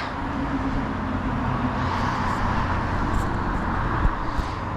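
Steady engine and road noise of a car being driven, with a brief knock about four seconds in.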